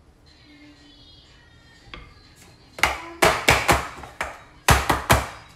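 Metal springform cake tin full of batter knocked down on the kitchen counter again and again, a series of sharp knocks about three a second starting about halfway through, to level the batter and knock out air bubbles.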